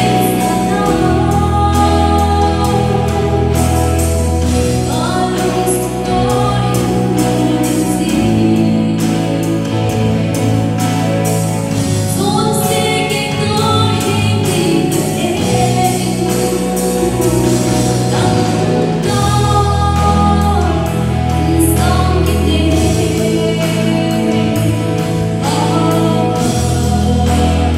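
Live church band playing a gospel worship song: a woman sings lead over electric guitars, bass guitar, keyboard and a drum kit, with a steady beat and sustained bass notes.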